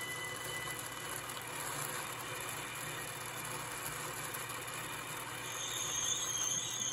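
Sound module of a Mehano Thalys model train playing high-speed-train sounds through its small onboard speaker: a steady electric hum and hiss. About five and a half seconds in, a high whine comes in and the sound grows a little louder, like traction motors starting up.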